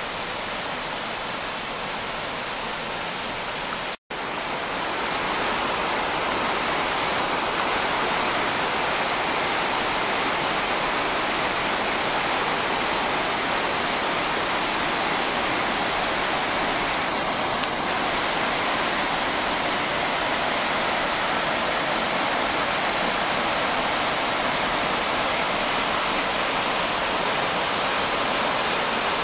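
Steady rushing of the Josephine Falls cascades, white water pouring over and between large boulders. It breaks off for an instant about four seconds in and is a little louder after.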